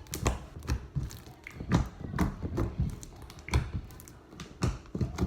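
Homemade slime being stirred and worked in a bowl: irregular taps and soft thuds from the mixing tool, several a second.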